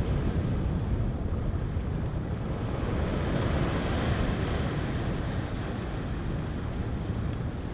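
Sea surf washing against a rocky shore, with wind rumbling on the microphone; the wash swells briefly about halfway through.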